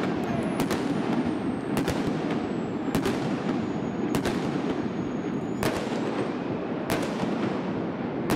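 Indoor fireworks bursting under a domed stadium roof: six sharp bangs a little over a second apart, each trailing into echo, over a steady background din.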